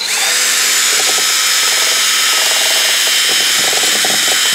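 Ryobi cordless drill used as a makeshift mixer, switched on at the start and running steadily at speed with a high motor whine. It is driving a beater shaft through icing ingredients in a glass mixing bowl.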